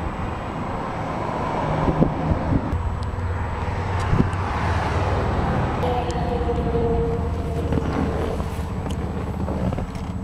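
Steady low engine rumble from a nearby vehicle, not from the truck, whose engine is off. A few light knocks and a faint held higher tone partway through sit over it.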